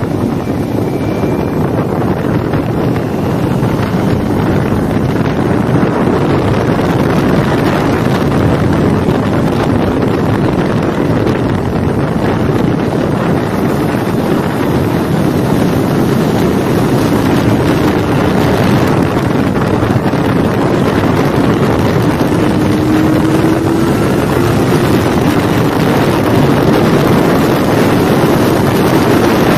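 Onboard sound of a Kawasaki Ninja 400 ridden fast: its parallel-twin engine running under load beneath heavy wind rush on the microphone. The engine note rises briefly about three-quarters of the way through.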